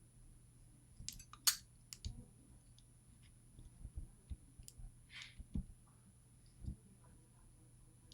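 Small, irregular metallic clicks and scrapes of a shim being worked into a lock cylinder to release the core, the sharpest click about one and a half seconds in, with a brief scraping hiss about five seconds in.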